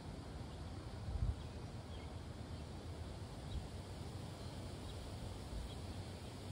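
Outdoor ambience: a steady low rumble with one louder bump about a second in, and a few faint, short high chirps.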